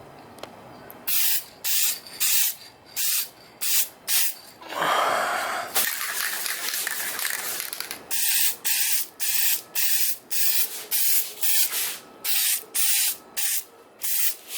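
Aerosol can of Dupli-Color trim and bumper paint spraying in many short bursts, with one longer spray of about three seconds in the middle.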